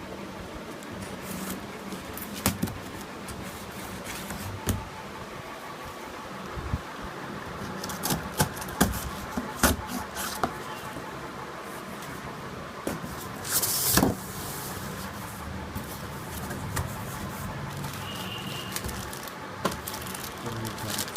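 Scattered clicks and knocks from a home theatre system's box and packaging being handled, with a short rustle about fourteen seconds in, over a steady background hum.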